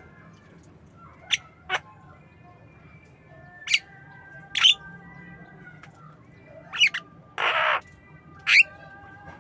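Javan myna giving a string of short, sharp squawking calls, about eight in all, with one longer, harsher rasping call of about half a second some seven seconds in.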